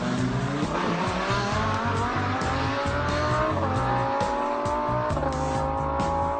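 Race car engine accelerating up through the gears: its pitch climbs steadily, drops at a gear change twice and climbs again, over background music with a steady beat.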